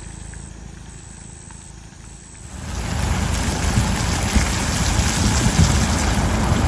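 A low, steady rumble, then about two and a half seconds in a loud, even hiss of heavy rain sets in abruptly and keeps going.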